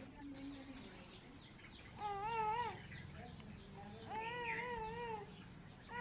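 An animal calling: two drawn-out, wavering cries of about a second each, a couple of seconds apart, with a brief third cry at the very end.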